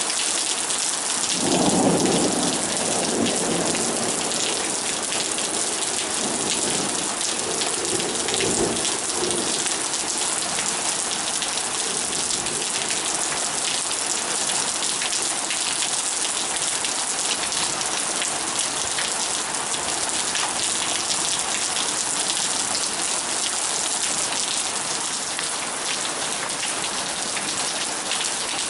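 Heavy rain pouring steadily, with a rumble of thunder about a second and a half in and a second, weaker rumble a few seconds later.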